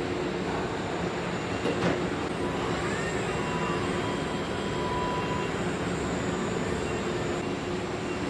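Steady hum and rumble of assembly-plant machinery, with a few whining tones over it and a single sharp knock about two seconds in.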